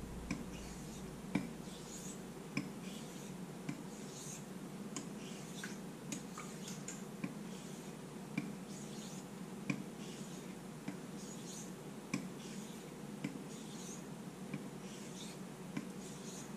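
Straight razor stroked edge-trailing across the 1000-grit side of a King combination whetstone, with a soft hiss of steel on the stone and a light click about every second and a quarter as the blade is turned over. This stone stropping lines up the burr on the edge.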